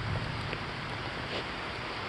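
Rain falling steadily, an even hiss with a few faint drop taps.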